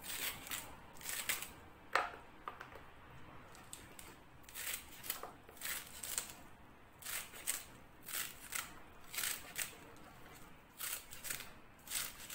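Kitchen knife slicing a crisp lettuce heart held in the hand, with no cutting board: quick runs of crunchy cuts with brief pauses between them.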